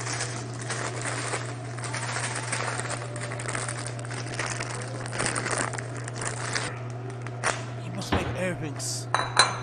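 Plastic bag of panko breadcrumbs crinkling and rustling as it is handled and worked open, over a steady low hum. The crinkling dies down about seven seconds in.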